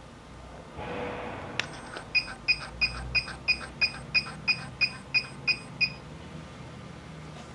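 360-degree HIFU machine beeping as its handle fires, about a dozen short, evenly spaced beeps at roughly three a second, after a single click.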